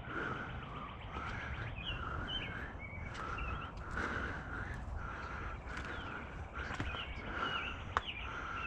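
Birds calling: a short call repeated over and over, with some warbling higher notes in between, over faint outdoor background noise.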